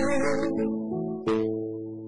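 Live ballad performance: a man singing into a handheld microphone over a backing track of sustained chords. His sung line trails off within the first half second, leaving the held chords, with a brief vocal sound a little over a second in.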